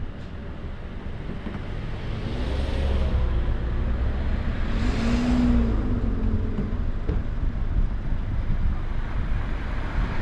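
Steady road and engine noise from a moving car, with two other vehicles passing close by, their pitch falling as they go; the second pass, about five seconds in, is the louder.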